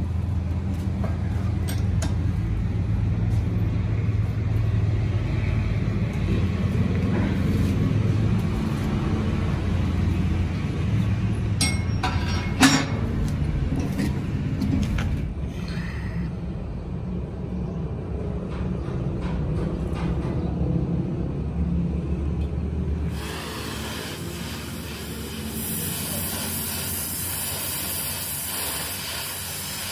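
A steady low rumble with a single sharp knock about halfway through. About three-quarters of the way in the rumble stops and an oxy-acetylene torch takes over with a steady high hiss as it burns.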